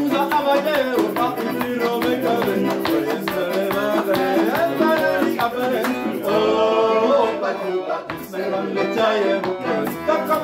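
Live acoustic band music: an accordion and a strummed acoustic guitar accompany several voices singing together.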